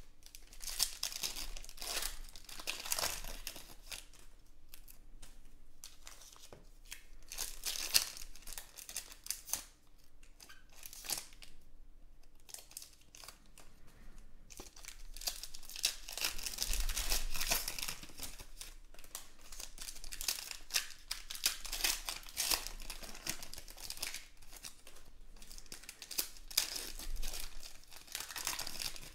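Foil trading-card pack wrappers crinkling and being torn open, in spells, with the soft flicks and slides of cards being sorted by hand in the quieter stretches between.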